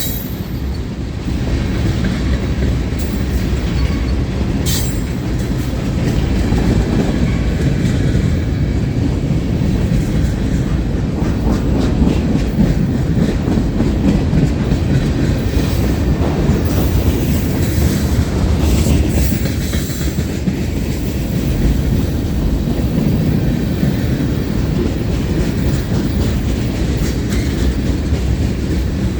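A long mixed freight train rolling steadily past close by: a loud, continuous rumble of steel wheels on rail, with clickety-clack as the car wheels cross rail joints.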